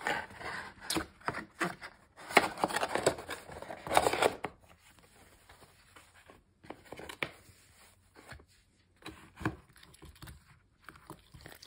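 Tissue wrapping paper rustling and crinkling as it is handled, for about the first four seconds. After that come scattered light taps and clicks.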